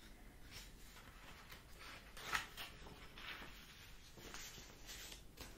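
Pages of a paperback book rustling as a page is turned and pressed flat by hand: several short, soft papery rustles, the loudest about two seconds in.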